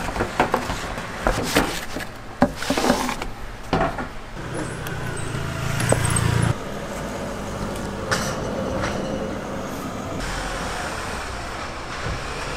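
Cardboard pizza box being handled and folded shut, a string of sharp clicks and knocks over the first few seconds, followed by steady street noise with a vehicle engine running.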